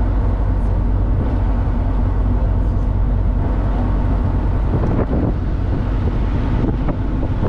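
Car ferry under way: a steady low engine drone with water and wind noise on the microphone.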